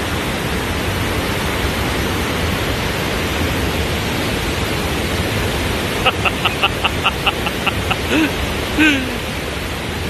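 Steady rushing roar of a large waterfall. About six seconds in, a quick run of short high chirps, about five a second, followed by two brief voice-like sounds.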